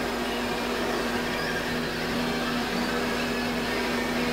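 Handheld blowtorch on a blue gas cylinder burning with its flame turned up high, giving a steady hiss.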